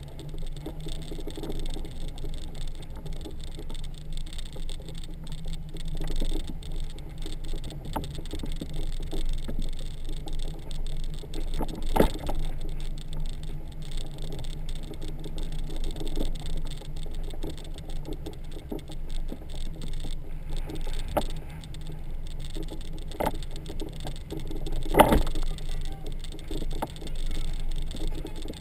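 Honda Gold Wing motorcycle running at low speed, heard from the trailer it is towing, with a steady low engine hum, road noise and the trailer's light rattling. Occasional sharp knocks come through, loudest once about halfway through and again near the end.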